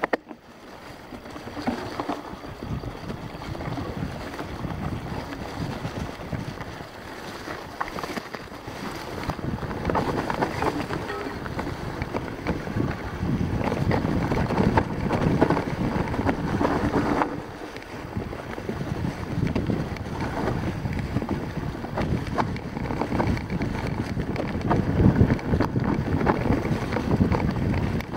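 Mountain bike rolling down a rough grassy trail: wind rushing over the microphone, with tyre noise and frequent knocks and rattles from the bike over bumps. It builds up over the first couple of seconds as the bike gathers speed from a standstill.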